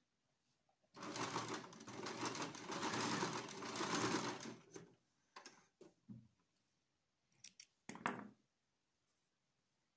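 Domestic electric sewing machine stitching a seam in one continuous run of about three and a half seconds, starting about a second in and then stopping. After it come a few light fabric rustles and, later, two quick sharp snips of thread snips cutting the threads.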